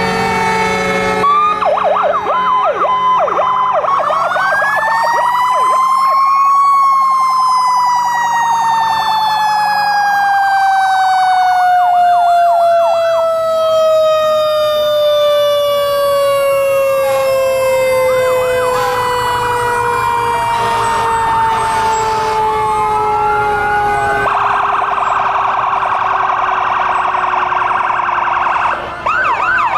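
Fire truck sirens from passing apparatus. One siren winds up in pitch over about six seconds and then slowly winds down. Other sirens yelp in quick up-and-down cycles and wail over it.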